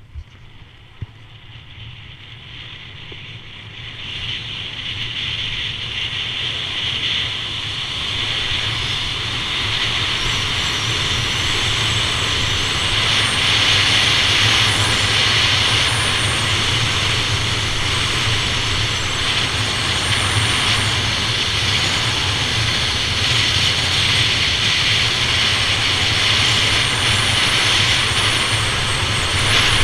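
Wind rushing over a body-mounted camera's microphone during a fast downhill run on snow, mixed with the hiss of sliding over the snow. It builds steadily louder over the first dozen seconds as speed climbs toward 40 mph, then holds. A single sharp click about a second in.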